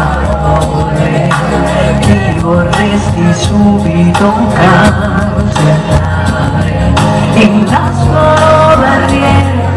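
Woman singing an Italian pop song live into a handheld microphone over loud pop accompaniment with a bass line and a steady drum beat.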